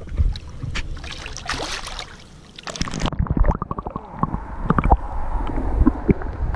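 Water splashing and sloshing at the surface around an arm and a released fish; about three seconds in it turns muffled and gurgling as the camera goes under the water.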